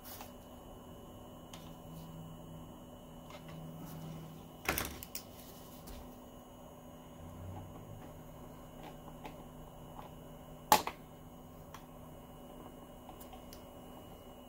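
Steady hum of a running Optoma HD20 DLP projector, with scattered small clicks and two sharper clicks, one about 5 s in and the loudest a little before 11 s. The clicks come from a tool working at the light tunnel inside the open projector, nudging it back into place.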